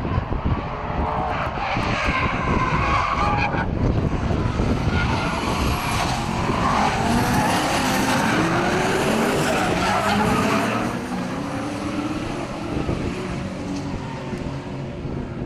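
Drift cars, one a Holden Commodore with an LS6 V8, revving hard while sliding, with tyres skidding. The engine notes rise and fall through the middle, and the sound eases after about eleven seconds.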